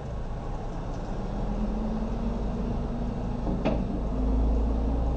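Vehicle engine running with a low, steady rumble, heard from inside a car, with a steady hum joining about a second in and a single sharp click about three and a half seconds in.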